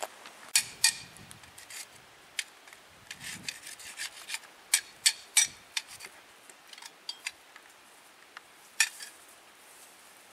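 Irregular sharp clicks and short scrapes as a canvas tent is taken down, with a few louder clicks among them.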